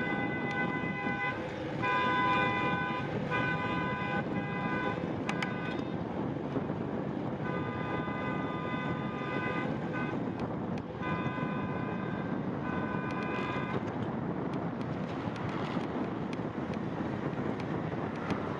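Car horn sounded again and again by a driver tailgating a cyclist: about seven blasts, some long, some short, over the first fourteen seconds, then only wind noise on the microphone of the moving bike.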